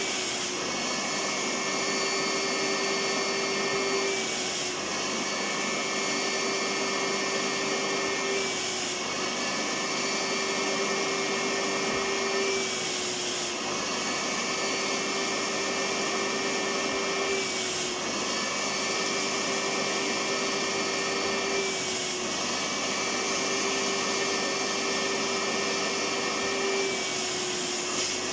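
Electric vacuum cleaner running continuously, a steady whine over a hiss, with a brief dip in pitch about every four seconds.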